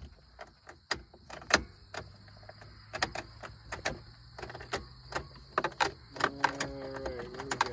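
Chevy Equinox being keyed for a start: scattered clicks, then in the last second and a half a steady electric whine, and the engine does not fire.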